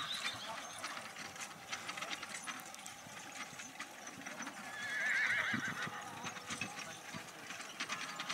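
A harnessed pony trots on grass pulling a marathon carriage, its hoofbeats and the carriage's light rattle going on throughout. About five seconds in, a horse whinnies once with a wavering call.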